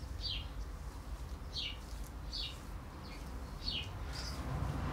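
A small bird chirping: a string of short, falling chirps, about one a second.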